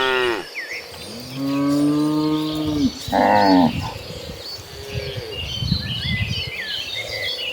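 Cattle mooing: a long low moo about a second in, followed at once by a shorter, higher moo. Small birds chirp near the end.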